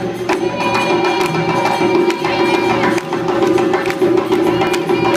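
Senegalese sabar drums played in a dense rhythm of sharp strokes. A held high tone sounds over them from about half a second in to just past two seconds.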